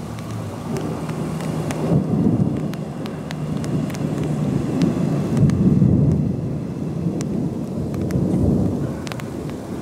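Thunder rolling in a long, low rumble that swells and fades several times.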